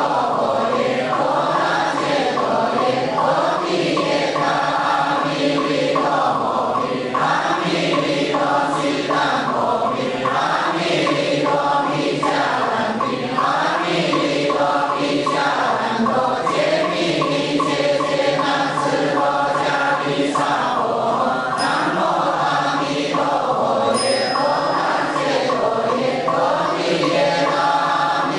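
Buddhist chant sung by a group of voices as devotional music, continuing at a steady level without pause.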